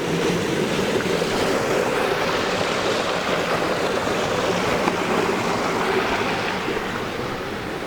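Steady rushing of water at a water mill's wheel and race, a continuous even wash of sound.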